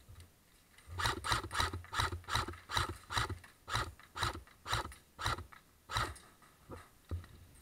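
Airsoft rifle fired in quick single shots: about fifteen sharp clicks at roughly three a second, starting about a second in, with two fainter shots near the end.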